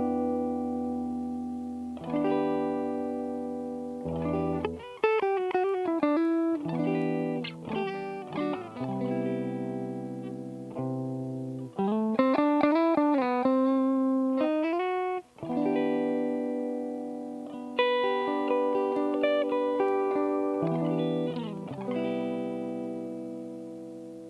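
Electric guitar, an Aria Pro II Vanguard, played through an optical compressor pedal (a ThorpyFX Fat General clone) and a cab simulator: chords and single-note lines left to ring, each note dying away slowly over a second or two. Bent, wavering notes come in twice, a few seconds in and around the middle.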